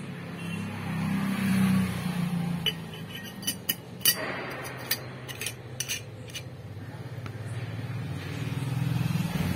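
A steel screw lid clinking and scraping against a small stainless steel bottle as it is screwed back on, a quick run of sharp metallic clicks in the middle, the loudest about four seconds in. A motor vehicle engine hums low underneath, swelling early on and again near the end.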